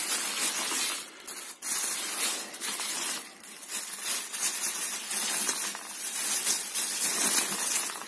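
Clear polyethylene bag crinkling and rustling as hands grip and pull it around a fan's wire grille, with short lulls about a second in and again past three seconds.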